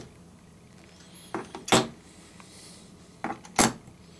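Hollow plastic toy wheels being pushed down onto plastic axles in a plastic pegboard: two pairs of light plastic clicks, the first pair about a second and a half in and the second a little after three seconds.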